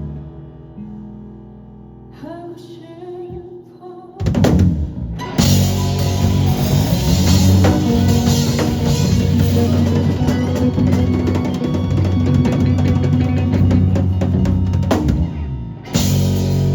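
Live rock band playing: a quieter passage of held, ringing notes, then about four seconds in a drum hit brings in the full band, loud, with a busy drum kit and guitars.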